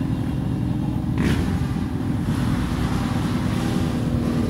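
Motorcycle engines running steadily at low speed in a slow-moving group ride, the rider's own cruiser the closest, a continuous low rumble. A short hiss about a second in.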